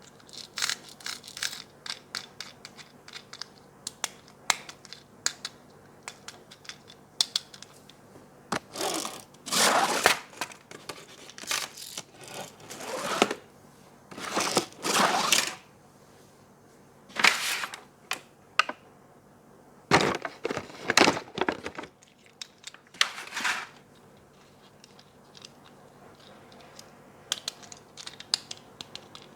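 Toy packaging being opened by hand: many sharp clicks and taps of plastic, with several short tearing and rustling sounds through the middle.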